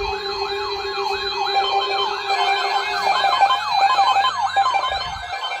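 Several electronic sirens yelping together, each sweeping rapidly up and down in pitch a few times a second and overlapping one another, over steady alarm tones. A lower steady tone drops out about one and a half seconds in.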